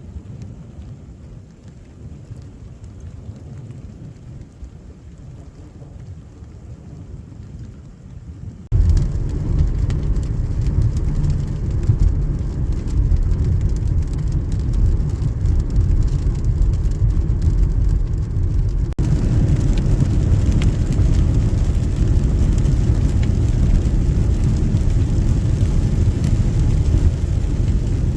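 Thunderstorm sounds: a low rumble of thunder with rain, which jumps abruptly much louder about nine seconds in and turns hissier again at about nineteen seconds.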